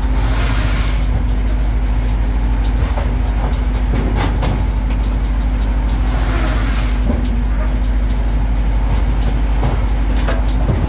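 Firewood processor running steadily under load, with frequent knocks and clatter of wood and a hissing surge twice, near the start and about six seconds in.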